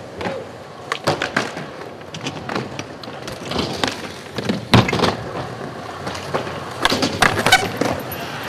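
Skateboards on concrete: wheels rolling with a series of sharp clacks of boards popping and landing, the loudest a little before five seconds in.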